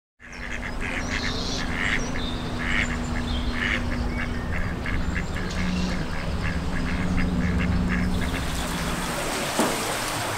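Waterbirds call in short, repeated calls over a low, steady rumble and hum. About eight seconds in, this gives way to the even splashing of water from the ship mill's paddle water wheel turning in the river current, with one knock shortly before the end.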